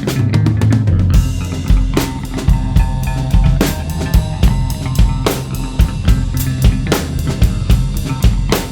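Ludwig Vistalite acrylic drum kit played in a steady beat of bass drum and snare strokes, with the kick coming in strongly about a second in.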